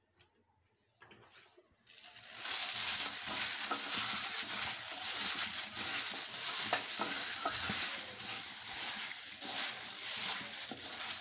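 Sliced potatoes, tomatoes and onions coated in oil and spice powder being stirred in a pan, with a steady sizzling hiss and crackle that starts suddenly about two seconds in.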